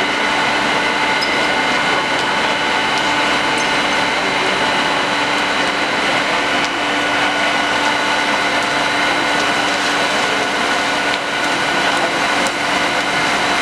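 Fire engines' engines and pumps running steadily, a constant machine drone with several held tones over a noisy hiss.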